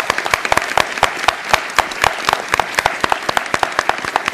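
Audience in an auditorium applauding, a dense, steady run of many hands clapping.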